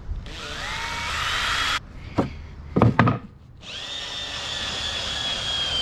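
Cordless drill driving screws into old wooden boards in two runs: the motor whine rises as it speeds up in the first run and starts to slow near the end of the second. A couple of sharp knocks come between the runs. The drill's battery is nearly flat.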